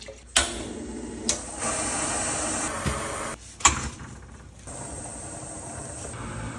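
Water poured from a plastic jug into a stainless steel pot on a gas stove, broken by a few sharp knocks. Near the end comes a steady hiss of the pot boiling over the gas flame.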